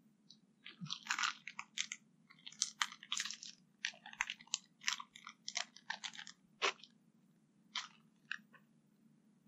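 Irregular dry crunches and snaps of twigs and pine litter on dry forest ground, coming in quick clusters and thinning out to a few single crunches near the end.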